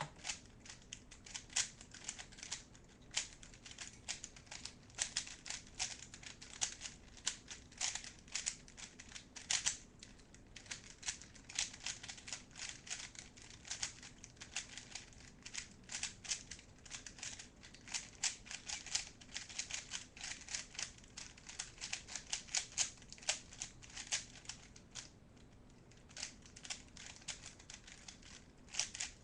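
Plastic Rubik's Cube being turned rapidly during a speed-solve, its layers clicking and clacking in quick irregular runs, with a brief pause about 25 seconds in.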